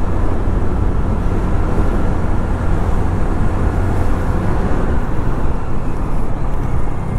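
Steady wind and road rumble while riding a TVS Jupiter 125 scooter at about 55 km/h, the wind buffeting the microphone and covering the engine.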